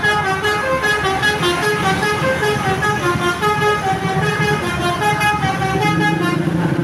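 Basuri V3 telolet bus horn playing a quick tune: a continuous run of short horn notes, several a second, each a steady pitch, jumping up and down.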